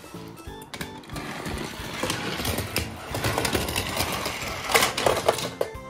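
Lightning McQueen toy car rattling mechanically with many small clicks, and a cluster of louder sharp clicks about five seconds in.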